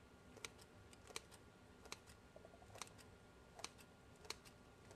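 Kitchen scissors snipping slits into soft raw bread dough: about six faint, sharp snips at a steady pace of more than one a second.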